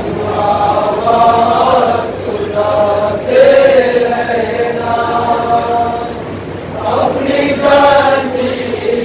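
A group of men chanting a nauha, a mourning lament, together in unison. The recitation comes in long sung phrases with short breaks between them.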